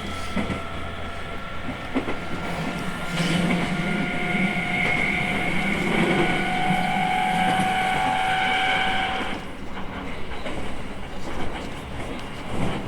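E217 series electric train running, heard from inside the car: the inverter and traction motors give several steady tones over the rumble of the wheels, and the tones cut off sharply about nine seconds in as power is shut off. A few wheel clicks over rail joints.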